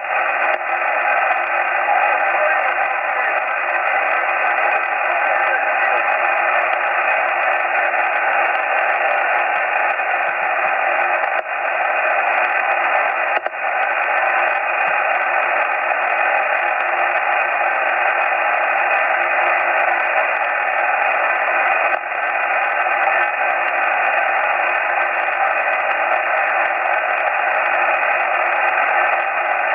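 Steady shortwave static from a receiver tuned to 8033 kHz in upper sideband, a hiss confined to the narrow voice band with faint steady tones running through it. It dips briefly a few times.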